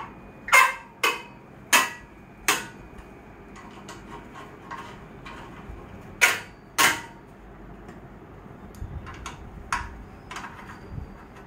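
Sharp metallic clinks and knocks of a hand tool working bolts on a treadmill's steel frame: four loud strikes in the first three seconds, two more about six seconds in, then lighter clicks near the end.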